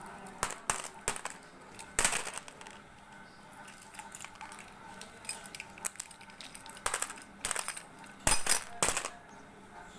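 ASMR trigger sounds: clusters of sharp clicks, taps and crackles with quiet gaps between, the loudest cluster near the end.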